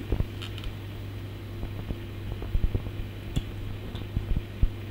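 Scattered faint taps and clicks of hands handling cable and fittings along the floor, over a steady low hum.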